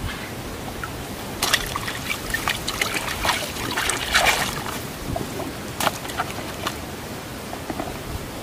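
Water splashing and trickling in a shallow, water-filled container as hands work in it, in irregular bursts that are busiest about four seconds in.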